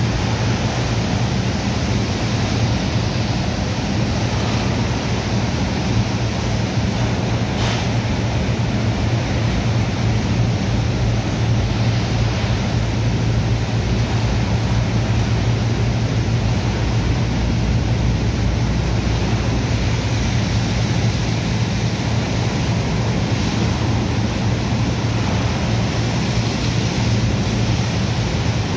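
Water from a hose jetting into wet sand and churning it to slurry, a steady rush, over the constant low drone of a running pump engine.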